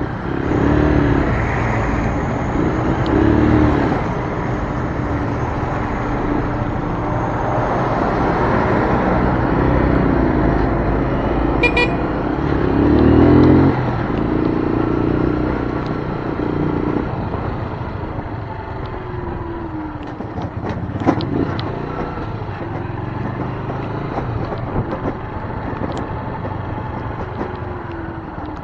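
Keeway Brusco 125 motorcycle's single-cylinder engine running under way, its pitch rising and falling in swells as the throttle is opened and eased, over a steady hiss of wet road and wind. A short beep sounds about twelve seconds in.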